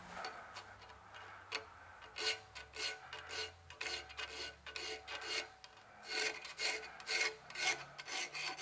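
Hand file rasping back and forth across the parting line on the rim of a flywheel casting, filing it flat. Short strokes, a few light ones at first, then a steady run of about two or three a second from about two seconds in.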